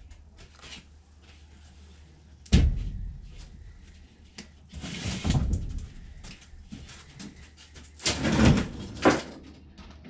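Building materials being handled and set down: a sharp thud about two and a half seconds in, then scraping and rustling around five seconds and again around eight to nine seconds in, as a sheet of cement backer board is moved and leaned in place.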